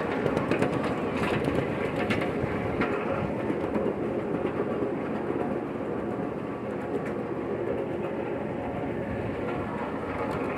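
Steady rumble and clatter of a moving train heard from aboard a riding car, its wheels running on the track, with a few sharper clicks in the first few seconds.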